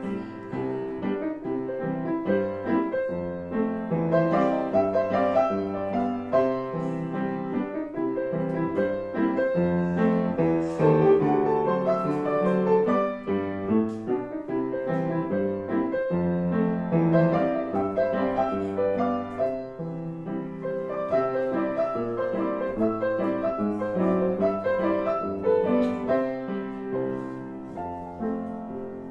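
Grand piano played solo: a busy, continuous stream of notes, with low bass notes sounding under chords and runs higher up.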